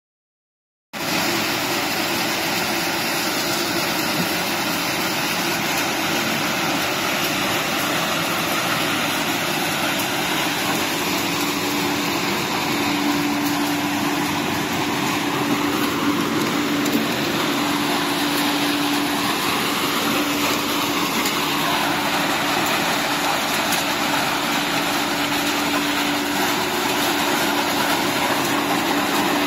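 Plastic bottle recycling line machinery running: a steady, even mechanical noise that starts about a second in, with a steady low hum joining about eleven seconds in.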